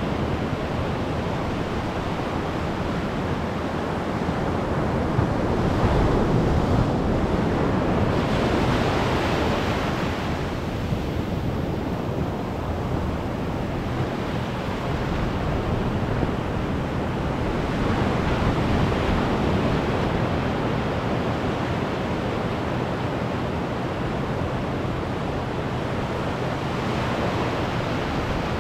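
Ocean surf: waves breaking and their shallow wash running up the sand close by, a continuous hiss that swells louder as each wave comes in, about every ten seconds.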